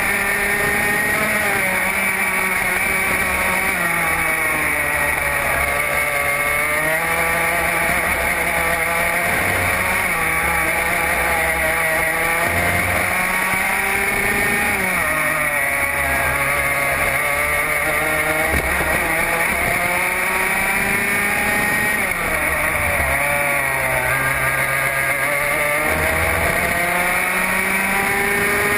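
Racing kart engine at race pace, heard from on board: its pitch climbs steadily, then drops sharply as it slows for a corner, about three times.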